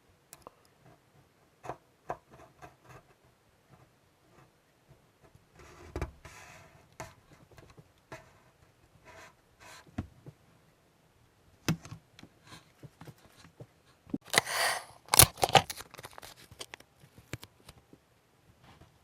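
Scattered light clicks and knocks of small objects being handled on a workbench, with a short rustling hiss about six seconds in and a louder one-second hiss near the three-quarter mark.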